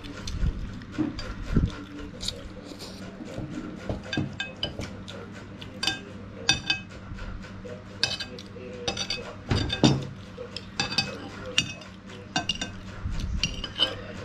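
Metal spoon clinking and scraping against a ceramic plate while noodles are scooped up: many short, irregular clinks with a light ring.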